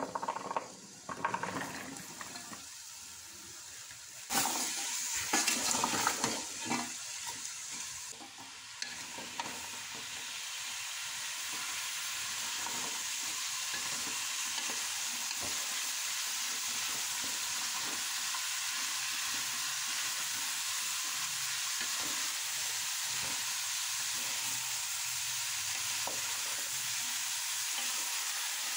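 Diced turnips tipped into hot oil and spice paste in a steel pot, sizzling in irregular bursts over the first several seconds. They then settle into a steady frying sizzle that slowly grows a little louder as a wooden spoon stirs them.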